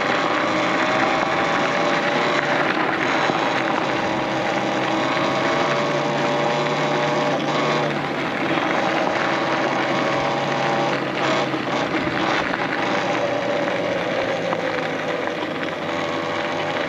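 Talaria Sting R MX4 electric dirt bike's motor whining while it is ridden, its pitch drifting gently up and down with speed, over a steady rushing noise.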